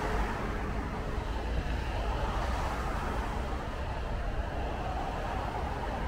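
Steady city road traffic on wet streets: a continuous wash of tyre noise over a low engine rumble.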